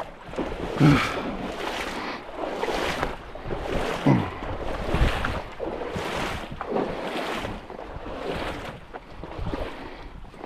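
Swishing footsteps, about one a second, with wind buffeting the microphone.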